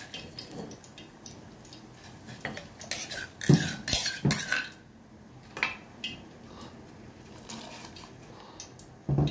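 Kitchen dishes and utensils clinking and knocking, with a cluster of sharp clinks about three to four and a half seconds in and a few lighter ticks after.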